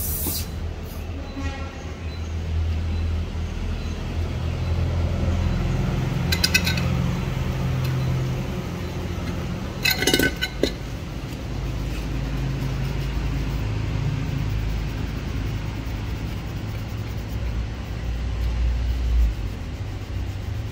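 Steady low engine rumble, like a vehicle idling close by, with two brief rattling sounds about six and ten seconds in.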